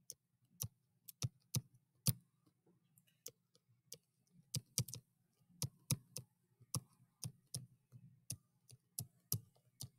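Stylus tapping and clicking against a tablet screen while handwriting, in sharp irregular clicks about two a second, over a faint low hum.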